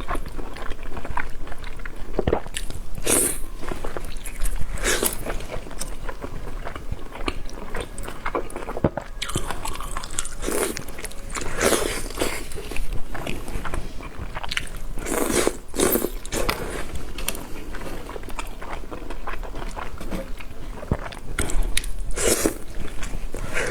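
Close-miked eating of marinated raw oysters: a continuous run of chewing and biting sounds, with louder bites every few seconds.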